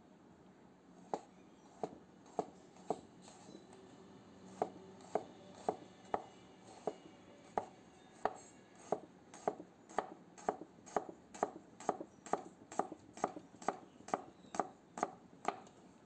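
Handmade chef's knife slicing a red onion on a wooden cutting board, each stroke ending in a sharp knock of the blade on the board. A few slow cuts come first, then after a short pause a steady run that speeds up to about two cuts a second and stops near the end.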